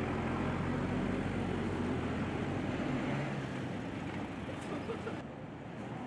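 Motor vehicle engine and road traffic noise: a low steady hum with a wash of tyre and road noise, the hum fading after about three and a half seconds.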